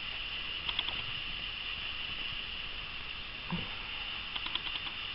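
Soft handling noise as a doll and its clothes are moved: brief runs of quick light clicks and crinkles about a second in and again near the end, and one soft thump in between, over a steady high hiss.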